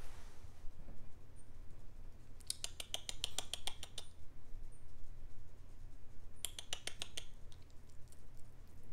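A baby marmoset moving about on a wire cage: two bursts of rapid clicking and rattling, with a few faint, brief high squeaks, over a low steady hum.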